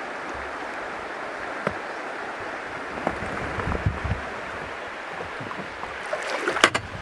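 Paddling an inflatable boat on a flowing stream: a steady rush of water with the splash of paddle strokes. A few knocks and clicks come from the paddle, the sharpest near the end as it is brought in across the boat.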